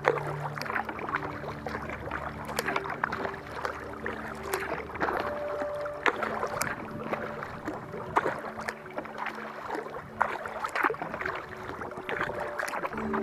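Kayak paddle strokes: irregular splashes and drips of the paddle blades dipping into calm water, every second or two.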